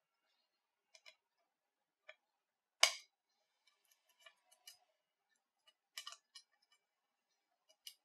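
Light clicks and short scratches of a thin pry tool working at the edge of a stripped Nokia Lumia 930 phone midframe, prying up a flex strip. The sharpest click comes about three seconds in, and a quick cluster of clicks about six seconds in.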